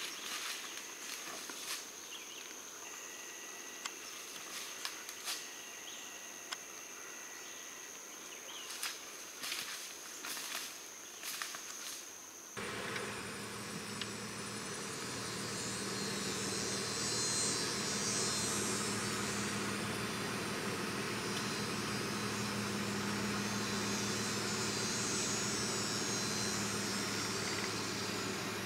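Insects droning steadily at a high pitch, with scattered crunches and snaps of footsteps in dry brush. About twelve seconds in it cuts to the inside of a moving vehicle: steady engine hum and road noise.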